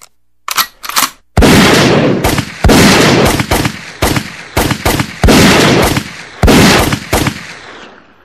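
Gunshot sound effects: a few sharp clicks, then about five loud, echoing shots roughly a second and a quarter apart, with smaller cracks between them, fading out near the end.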